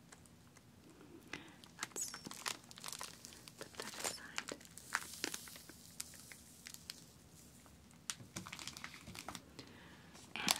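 Cellophane wrapping on a pack of coloured sand tubes crinkling under fingertips and long nails, with irregular clicks and taps. A sharper click comes near the end.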